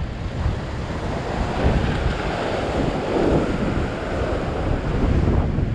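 Ocean surf washing and churning against a rock ledge, with wind buffeting the microphone as a low rumble.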